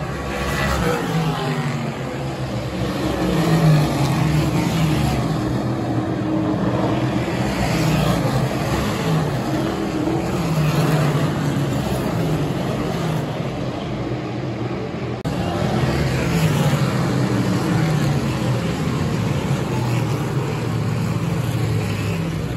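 Small-block modified dirt race cars running at speed, their small-block V8 engines loud and continuous. The engine note rises and falls over and over as the cars pass and throttle around the track.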